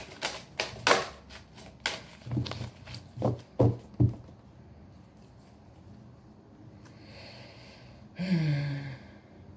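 A tarot deck being shuffled by hand: a quick run of sharp card clicks, then several dull taps as the deck is squared up. Near the end, a woman's short hum that falls in pitch.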